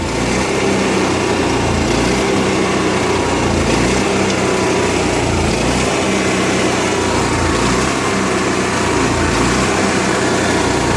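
Onan MicroQuiet 4000 RV generator engine running rough, its note wavering unevenly about once a second. The owner finds this rough idle persists despite a clean carburettor, new air filter, steady fuel flow and a nearly new spark plug.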